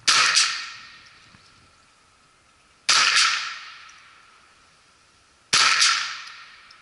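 A Ruger 10/22 semi-automatic .22 LR rifle firing three single, evenly spaced shots about two and a half seconds apart, each sharp crack dying away over about a second.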